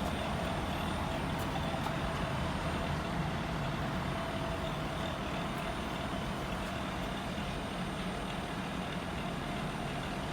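Air conditioner outdoor unit running with a steady drone and a constant whining tone over a low hum: the abnormal noise the unit is making.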